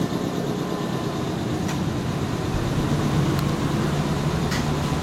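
Steady hum of a stopped Nankai 6300 series electric train car, its air conditioning and onboard equipment running, with a faint steady high whine and a few light clicks.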